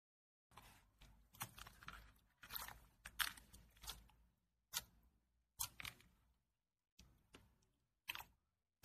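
Clear slime being pressed flat and stretched by hand, making a run of short sticky squishes and crackling pops, broken by a few brief silent gaps.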